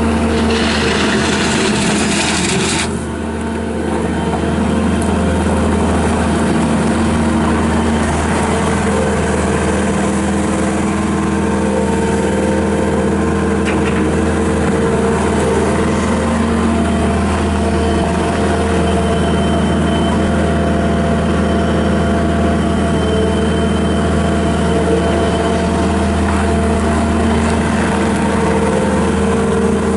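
Bobcat S770 skid steer's Kubota V3800 diesel engine running steadily, its note shifting slightly now and then. A hiss over the engine stops abruptly about three seconds in.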